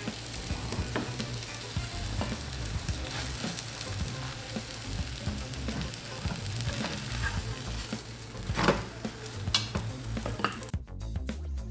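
Pineapple omelette sizzling as it fries in a non-stick pan, with light scrapes and taps of a slotted spatula. A louder clack comes about eight and a half seconds in, as the omelette is flipped.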